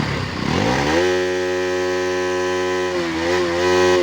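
Bajaj Pulsar NS200's single-cylinder engine revved hard: the pitch climbs quickly over the first second, holds high and steady for about two seconds, then drops and is blipped back up near the end.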